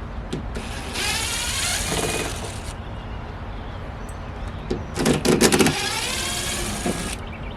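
Cordless power driver run twice, backing out screws; each run lasts about two seconds with its motor pitch wavering, the second louder, with a quick rattle as it starts.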